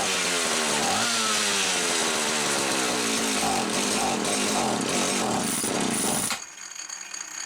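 Homelite 360 two-stroke chainsaw engine running hard on the bench, its pitch rising and falling as it is revved, then cutting back sharply about six seconds in. The carburetor is set so that it runs very rich.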